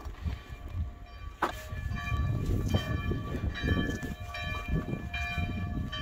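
A rusty old Jawa 250 motorcycle squealing and creaking as it is pushed along a gravel track: high metallic squeal tones that come and go, with a few clicks, over a low rumble of wind on the microphone.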